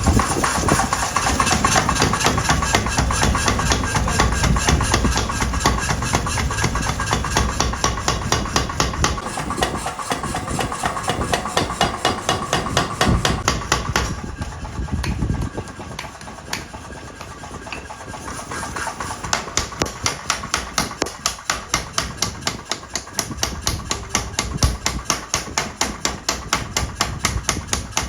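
Hammering on steel while a sickle blade is forged: rapid, evenly spaced blows, several a second, over a steady machine hum. The blows ease off about halfway through and pick up again a few seconds later.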